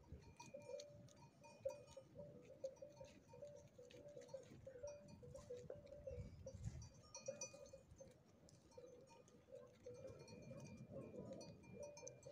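Quiet sounds of a flock of sheep and goats grazing close by: faint, repeated clinking of bells and light clicks and rustles as the animals feed.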